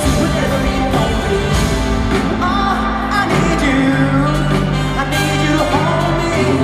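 Live pop music: a male singer singing into a handheld microphone over an amplified full band, with steady held bass notes beneath the melody.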